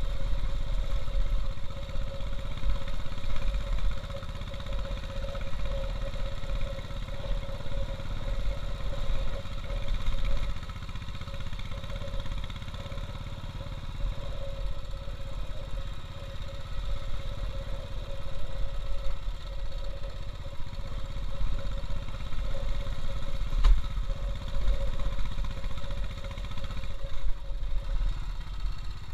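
Royal Enfield Bullet's single-cylinder engine running at low road speed, with the bike clattering over a rough, rocky dirt track.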